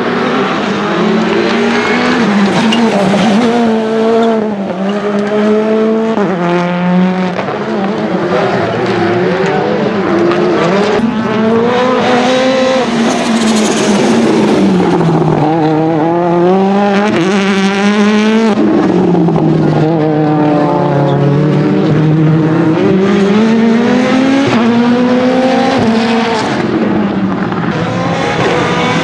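Rally car engine run hard, its pitch climbing and falling again and again as it accelerates, shifts gear and lifts off. A few sharp pops are mixed in.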